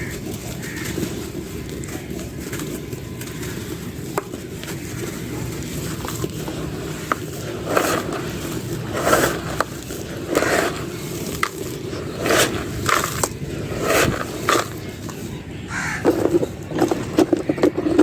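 Dry clay being crumbled and crushed: crunchy cracking and snapping, sparse at first, then a run of loud crunches from about halfway through that grows denser near the end, over a steady low rumble.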